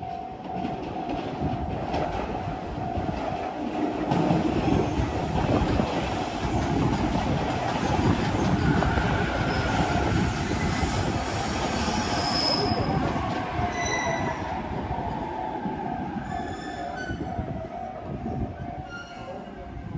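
A JR Kyushu BEC819-series battery-electric train running along the track, heard from inside the front of the train. The wheels rumble on the rails under a steady whine, and a higher whine falls slowly in pitch midway. Brief high ringing tones come several times in the second half.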